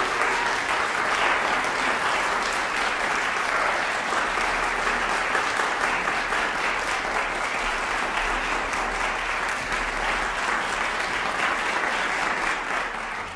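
Concert-hall audience applauding steadily, dense clapping that fades out at the very end.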